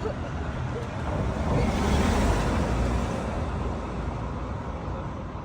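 A vehicle passing on the road, its noise swelling to a peak about two seconds in and then fading.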